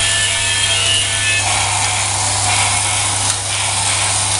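Battery-powered toy trains running on plastic track: a steady whirring rattle of small motors and gears, with a low hum underneath. A thin electronic melody of held tones plays over it and stops about a second and a half in.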